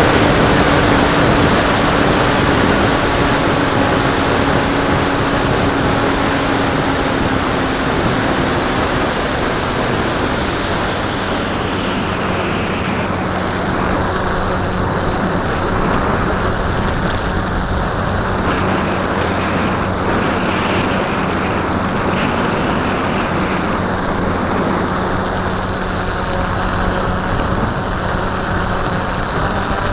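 Wind rushing over an onboard camera on a Bixler 2 RC plane in flight, mixed with the steady hum of its Turnigy D2826-10 brushless motor and 8x5 pusher propeller. The motor hum drops to a lower pitch about ten seconds in.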